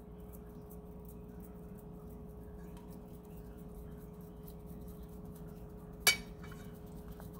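Faint light ticking of an onion powder shaker being shaken over a raw salmon fillet on a plate, over a steady low hum. One sharp clink about six seconds in.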